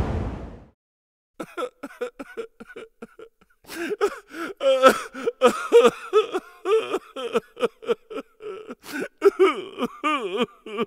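Wind noise fading out, then a string of short voice-like sounds with sliding pitch, sputtering on and off to the end.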